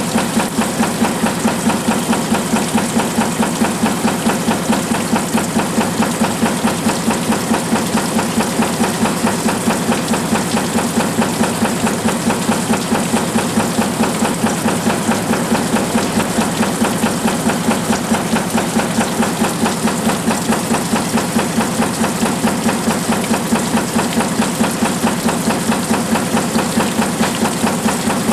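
Mineral shaking table running, its drive head knocking in a steady, even rhythm of about four to five strokes a second as the deck shakes.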